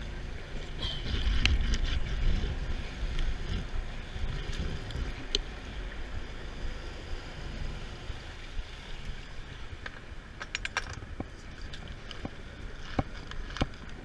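Wind rumbling on the microphone over the running noise of the moving boat, with scattered clicks and ticks from a conventional fishing reel and rod being worked while fighting a fish, and a quick run of clicks about ten seconds in.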